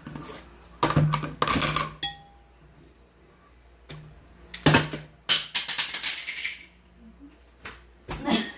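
A metal spoon clinking and knocking against a blender jar as sugar is spooned in: a scatter of sharp clinks, one ringing briefly about two seconds in. The blender's plastic lid drops near the end.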